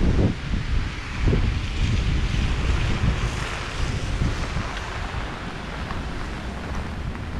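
Strong wind gusting against a GoPro Hero8's microphone: low buffeting, heaviest in the first second and a half, over a steady high rushing hiss.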